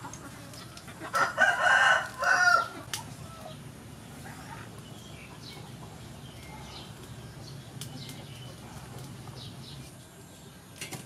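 A rooster crowing once, about a second in, for about a second and a half, with a short break near its end.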